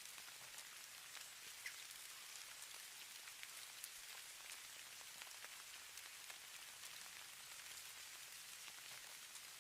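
Falling snow: a faint, even hiss dotted with many tiny ticks as flakes land, with a couple of slightly sharper ticks standing out.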